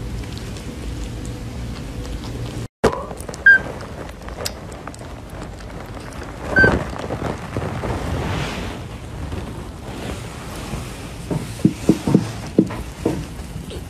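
Tiny kitten giving two brief, high, squeaky mews about three seconds apart, over a rustling, hissy background. Near the end comes a quick run of soft bumps.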